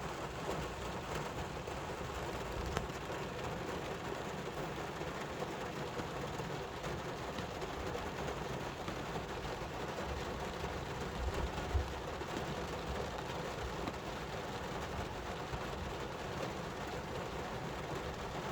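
Steady rain falling, with a brief low thump about twelve seconds in.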